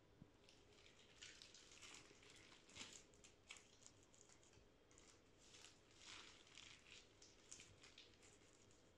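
Faint, irregular soft rustling and squishing of gloved hands turning and handling a large raw beef cut.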